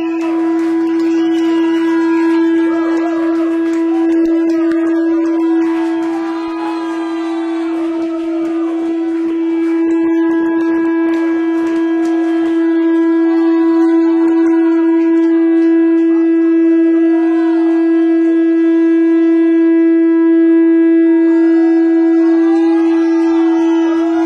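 A single high note held perfectly steady by a live rock band, with fainter sliding, wavering tones rising and falling around it.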